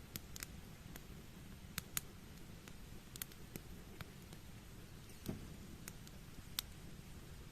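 Wood fire crackling: a dozen or so sharp snaps at irregular intervals, the loudest about two seconds in, over a steady low background noise.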